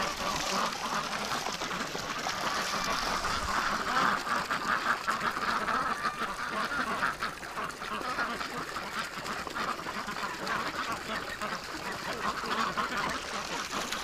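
Flock of domestic ducks, mostly Pekins, quacking in a busy, overlapping chatter.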